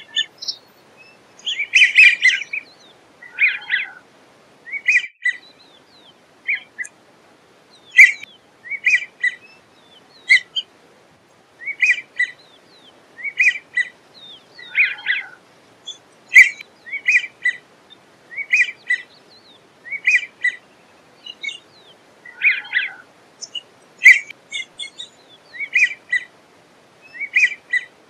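American wigeon drake giving its whistled calls: short groups of two or three notes, repeated about once a second.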